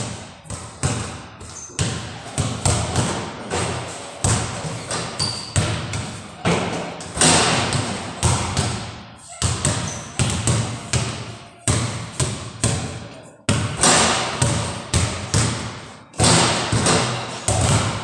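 Several basketballs bouncing on a hard floor in quick, irregular thuds, overlapping as more than one player dribbles and shoots, each bounce echoing in a large bare-walled room.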